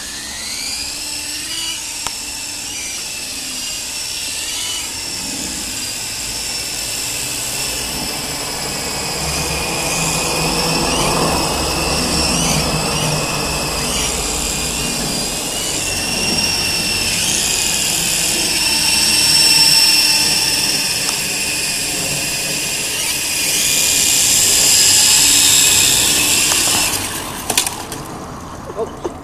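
Volitation 9053 RC helicopter's electric motors and twin rotors spinning up with a rising whine, then whining up and down with the throttle. The whine cuts off sharply near the end, followed by a few clicks.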